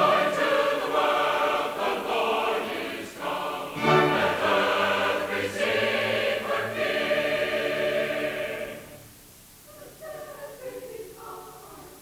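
Large mixed choir singing with an orchestra, full and loud. About nine seconds in the music breaks off, and only a much quieter sound remains.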